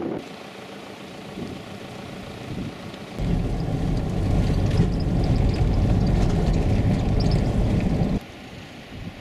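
A vehicle driving along a red-sand dirt track: loud, low, steady engine and road noise. It starts abruptly about three seconds in and cuts off about a second before the end. Before it there is a quieter wind noise.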